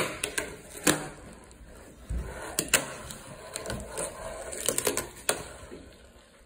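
Fingerboard rolling on a wooden tabletop, its small wheels giving a soft rumble, broken by several sharp clacks as the board is popped and lands during tricks.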